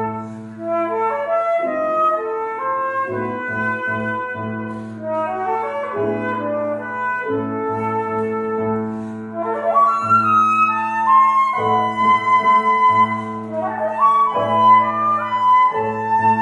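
Concert flute playing with grand piano accompaniment in a classical piece. The flute holds long notes and breaks into quick rising runs, and the music grows louder about two-thirds of the way through.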